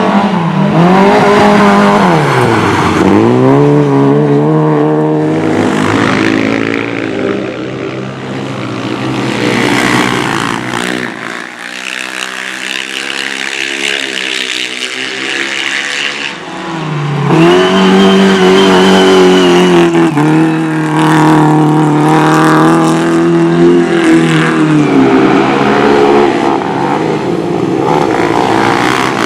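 Speedway motorcycles racing on a cinder track, their single-cylinder engines revving hard. The engine note drops and climbs again through the turns. It fades back in the middle as the bikes move away, then comes back loud about two-thirds of the way through.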